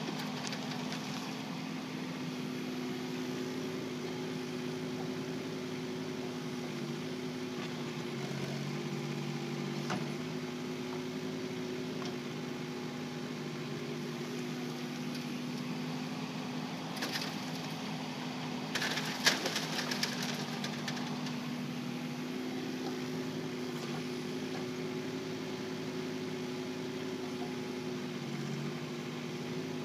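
Kubota K008-3 micro excavator's three-cylinder diesel running steadily, its note shifting under changing load a few times. A short burst of sharp clatter comes about two-thirds of the way in.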